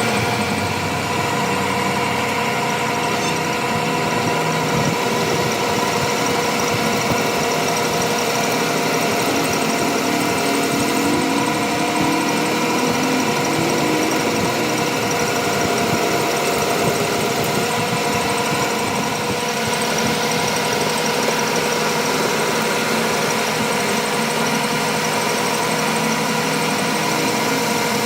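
A machine running steadily: a constant hum with several fixed tones at an even level.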